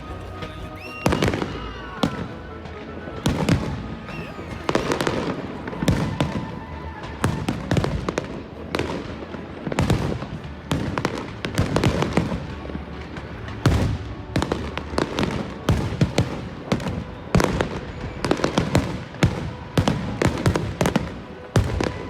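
Fireworks going off in a rapid, irregular string of sharp bangs and crackling bursts, several a second, with music playing underneath.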